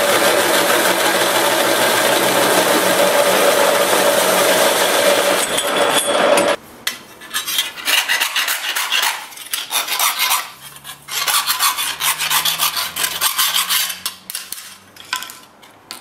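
Pedestal drill driving a 35 mm hole saw through a steel plate for a test hole: a loud, steady cutting noise with a constant tone, cutting off suddenly about six and a half seconds in. Then a round file rasping in short, irregular strokes around the edge of the cut hole.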